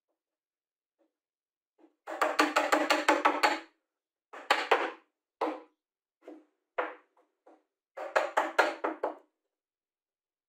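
Mallet knocking on plywood, tapping the parts of a plywood box frame into place: a quick run of knocks about two seconds in, then single knocks spaced out, then another quick run near the end, each with a short woody ring.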